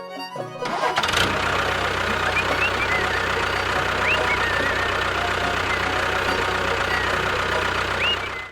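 A motor runs steadily with a regular low pulse, like an engine idling, starting about a second in as fiddle music cuts out. A few short high chirps sound over it.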